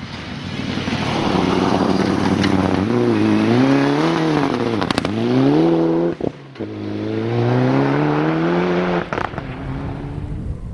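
Rally car engine, a Mitsubishi Lancer Evolution, pulling hard past on a gravel stage: the revs climb and drop with each gear change, fall away sharply about halfway, break off briefly, then climb again and fade near the end.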